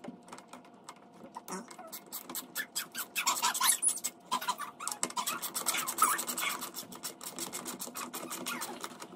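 Hand screwdriver fastening a metal TV wall-mount bracket to the wall: a run of rapid clicks and scratching that grows denser from about three seconds in.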